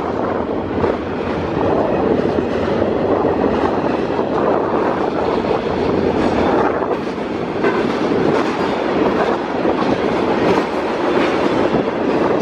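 A train rolling past on the tracks, its wheels running steadily on the rails.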